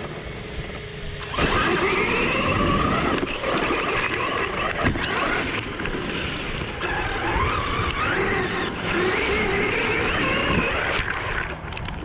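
ARRMA Talion 6S RC car's brushless motor whining, its pitch rising and falling as the throttle is worked. The whine starts abruptly about a second and a half in and drops away near the end, over a rough low rumble.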